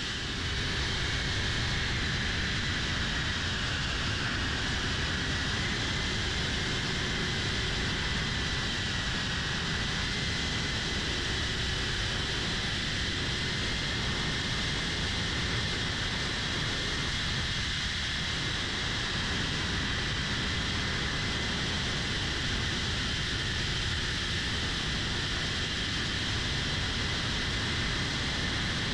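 A 3-inch cinewhoop FPV drone's motors and ducted propellers whining at a fairly steady, high pitch that wavers slightly, over a steady rushing noise.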